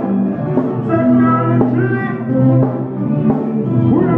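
Reggae music played live: a deep bass line under held, brass-like chords that change about once a second.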